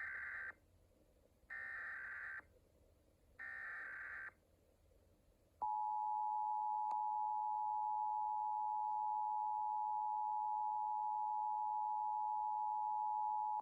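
Emergency Alert System SAME header: three harsh, buzzy digital data bursts about a second each, which encode the alert, here a required monthly test. About five and a half seconds in, the steady two-tone EAS attention signal starts and holds, announcing that an alert message follows.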